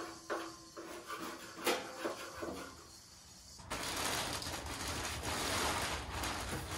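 Plastic bag crinkling and rustling as it is pulled and handled around a crated engine, starting about halfway in.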